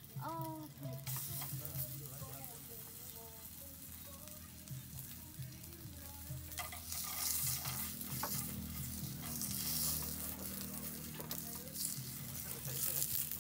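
Food sizzling as it fries in a pan, with the scrapes and taps of stirring. The sizzle grows louder about six seconds in.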